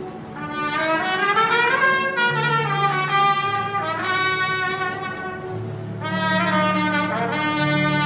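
Solo trumpet playing a melody over a military brass band: two phrases that climb and then fall in pitch, over held bass notes.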